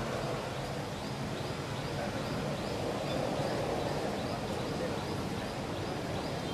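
Steady outdoor ambience with a faint high chirp repeating about three times a second.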